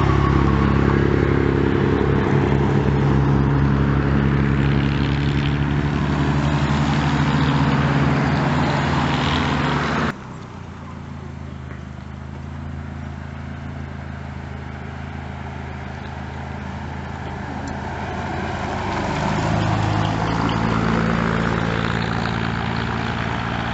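Vintage cars' engines running as the cars drive past one after another through a bend, the first one loud and close with a steady engine note. About ten seconds in the sound drops suddenly, and another car's engine then grows louder as it approaches.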